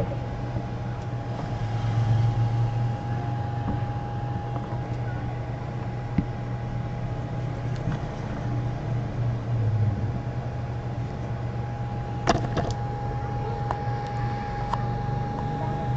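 Steady low droning hum with a thin constant tone above it, and a short cluster of sharp clicks about twelve seconds in.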